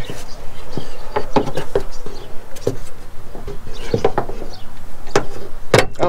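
Irregular metallic clicks and knocks of a Toyota 4Runner's hood prop rod being swung up and fitted into the raised hood one-handed, over a faint steady hum.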